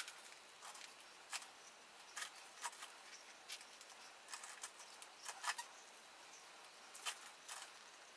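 Faint, irregular light clicks and crinkles as a gloved hand moves over the plastic sheeting toward the tap wrench, with no steady sound under them.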